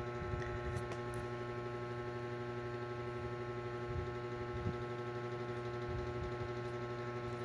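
Steady electrical hum, a buzz with many evenly spaced overtones, with a few faint ticks about a second in.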